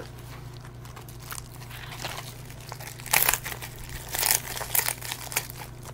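Plastic bubble mailer being torn open and handled: a run of irregular crinkling and ripping noises starting about two seconds in, loudest in the middle.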